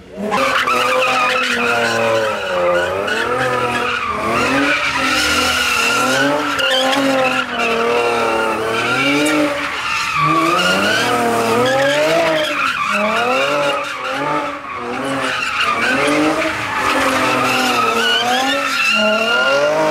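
A car spinning donuts, its engine revving up and down every second or so while its rear tyres screech against the pavement.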